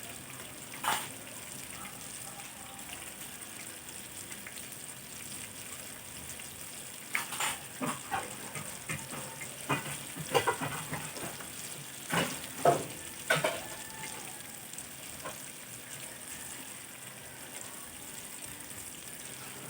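Food frying in a pan with a steady sizzle. Through the middle come a run of sharp clinks and knocks, like kitchen utensils or dishes being handled.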